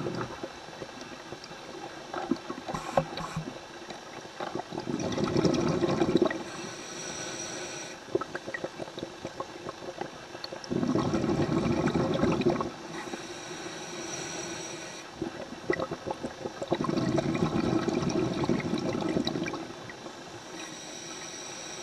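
A scuba diver breathing through a regulator underwater. Three gushes of exhaled bubbles come about six seconds apart, each lasting about two seconds, with a thin hissing whistle of the regulator on each inhalation between them. A crackle of small clicks runs underneath.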